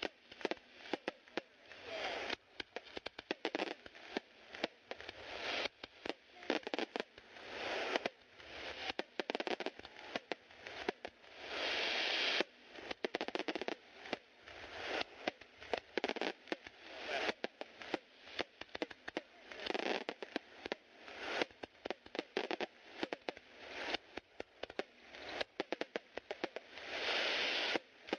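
Aerial fireworks shells bursting one after another in quick succession, with sharp bangs and spells of crackling between them.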